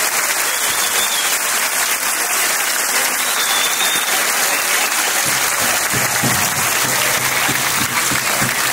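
A crowd applauding steadily. About five seconds in, a low steady hum joins underneath.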